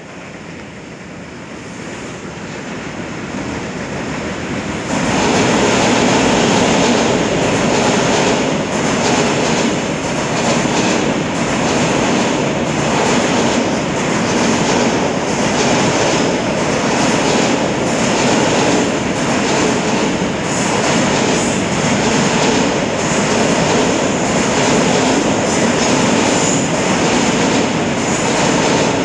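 JR Freight train hauled by an EH500 electric locomotive, growing louder over the first five seconds as it approaches, then passing close by with a steady loud rumble of wagon wheels on the rails and a repeated clatter.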